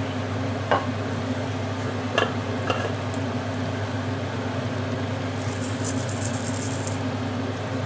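Onions simmering in liquid in a frying pan, a steady bubbling over a low hum, with a few light clicks and a brief crackle about five and a half seconds in.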